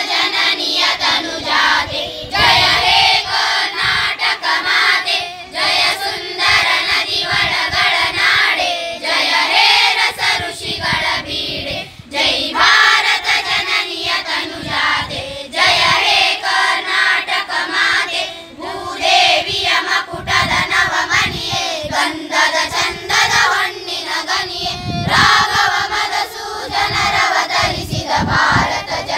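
A group of schoolchildren singing a song together as a choir, one continuous sung phrase after another.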